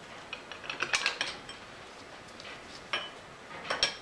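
Scattered light metallic clinks and taps as a wrench and bolt are handled on the head of a Bridgeport milling machine. A cluster comes in the first second, then single clinks and a last pair near the end.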